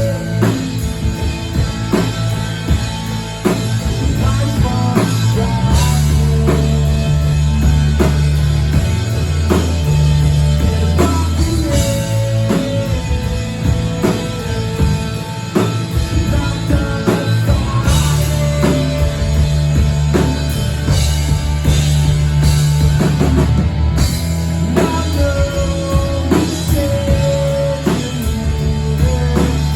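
Live rock band playing, with a drum kit keeping a steady beat under sustained bass notes and guitar.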